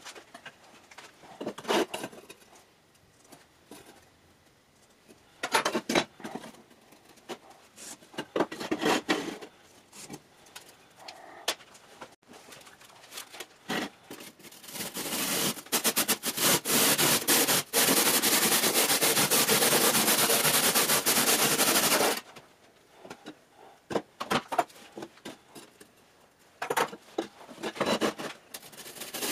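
Handsaw rasping steadily through a soft insulating fire brick for several seconds around the middle, with scattered knocks and scrapes of brick pieces being handled on the bench before and after; sawing starts again near the end.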